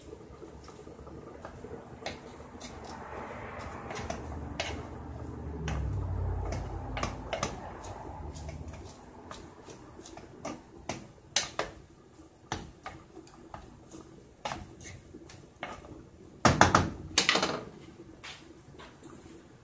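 Wooden spoon stirring cabbage in a small cooking pot, with scattered clicks and knocks against the pot and a low rumble midway. Near the end comes a louder clatter, as the spoon is set down on the stovetop.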